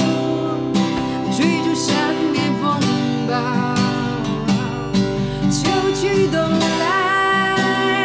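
A woman singing, her held notes wavering with vibrato, over a strummed steel-string acoustic guitar.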